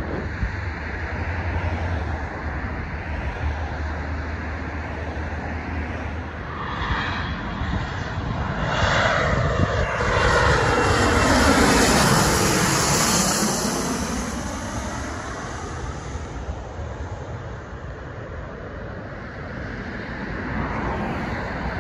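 American Eagle Embraer 145 regional jet on final approach, its twin turbofans building up, passing overhead at their loudest about ten to thirteen seconds in, with a whine that falls in pitch as the jet goes by, then fading. Wind rumbles on the microphone early on.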